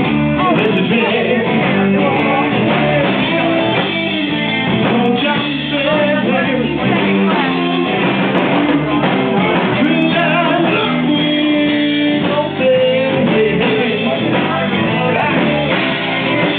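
A song playing, with a singing voice over guitar.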